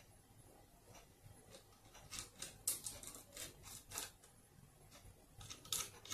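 Hands sliding and adjusting a riflescope in its mounting rings on a PCP air rifle: a run of short scrapes and rubs from about two seconds in, then a few more near the end.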